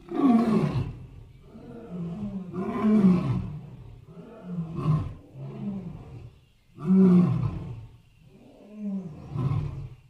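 Lion roaring sound effect: a run of roars and grunting calls, the loudest about half a second in, around three seconds and around seven seconds, with shorter calls between.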